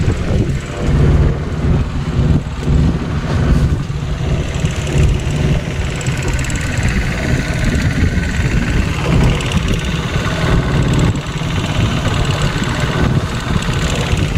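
Outboard motor on a small wooden boat running steadily under way, with a steady rush of wind and water noise over it.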